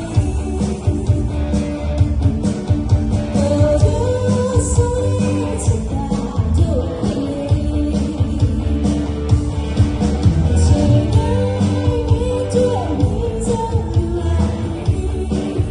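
A band playing a rock-pop song with a lead singer, drums, bass and guitar.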